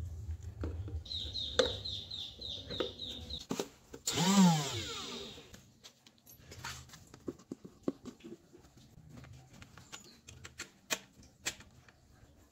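Small PVC parts and a drill chuck being handled and fitted, with scattered clicks and taps. About four seconds in, the 775 DC motor gives a short whir that rises and falls away within about a second.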